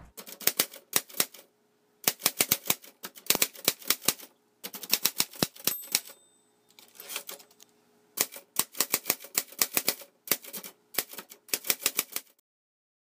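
Typewriter keys clacking in quick bursts with short pauses between, and a brief high ring about six seconds in; the typing stops shortly before the end.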